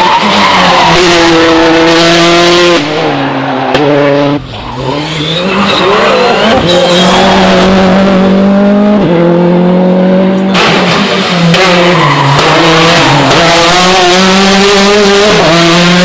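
Rally cars driven flat out through bends. Their engines rev hard, the pitch climbing and dropping sharply with each gear change and lift-off, with tyre squeal.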